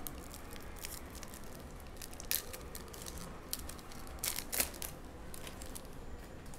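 Foil wrapper of a trading-card pack being torn open and crinkled by hand as the cards are pulled out: irregular crackles and rustles, with a few sharper crackles about two and four and a half seconds in.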